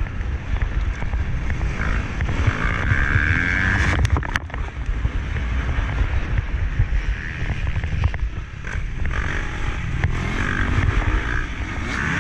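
Motocross motorcycle engine running under load, its note rising and falling, heard from an onboard camera with heavy wind buffeting on the microphone. A couple of sharp knocks about four seconds in.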